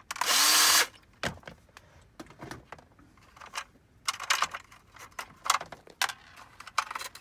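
A handheld electric screwdriver runs in one short burst of under a second, its motor pitch rising, as a screw is backed out of the printer. Scattered clicks and rattles of plastic parts being handled follow.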